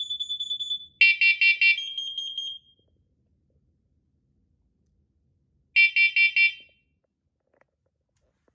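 Interconnected smoke and carbon monoxide alarms sounding the carbon-monoxide alarm pattern, set off by a Kidde KN-COB-IC. There is rapid high beeping at first, then four loud beeps about a second in, and after a pause of about three seconds another group of four beeps.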